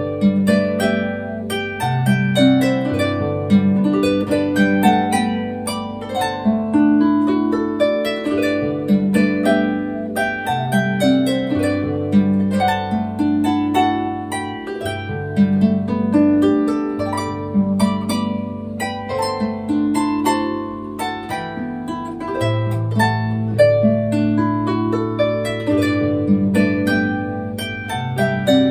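Background harp music: a run of plucked notes over longer low bass notes.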